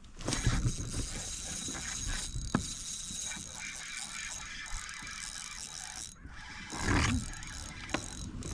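Fishing reel being cranked, a steady fine clicking whir as line is wound in, with a louder rustle about seven seconds in.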